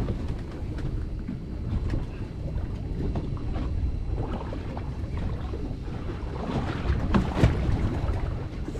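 Wind blowing across the microphone over choppy water around a drifting small fishing boat: a steady, noisy rush with no distinct events.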